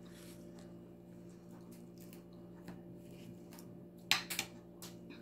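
Chewing of crispy bagnet (deep-fried pork belly), mostly quiet, with a few sharp crunches about four seconds in. A steady low hum runs underneath.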